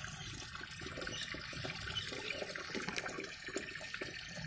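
Low, steady sound of trickling water in a garden pond, with many faint small ticks and splashes.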